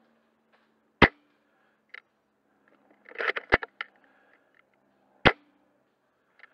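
Silverback SSG24 spring-powered bolt-action airsoft sniper rifle. It fires two sharp shots, about a second in and again near the end. Between them there is a quick cluster of clacks as the bolt is worked to cock it and chamber the next BB.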